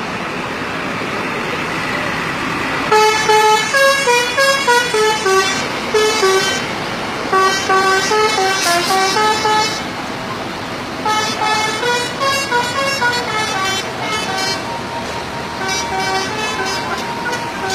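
Bus 'telolet' musical horns playing fast stepped melodies in four bursts, the first starting about three seconds in, over steady street noise.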